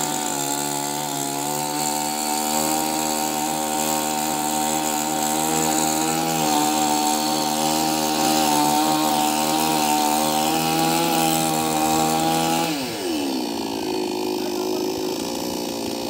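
Chainsaw running at high revs while cutting tree branches, its pitch wavering a little under load, then dropping sharply to idle about thirteen seconds in.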